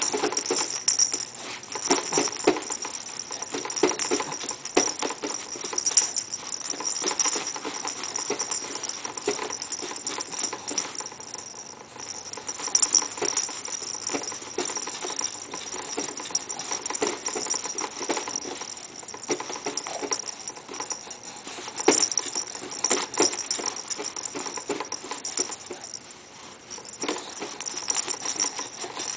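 Striped cloth ball toy rattling and jingling in irregular bursts as a baby kicks and bats it, with soft rustling and bumping against the bouncer seat.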